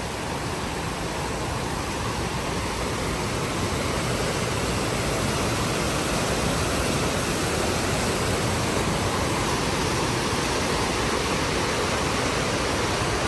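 Large plaza fountain's water jets and cascades splashing: a steady rushing hiss that grows a little louder over the first few seconds.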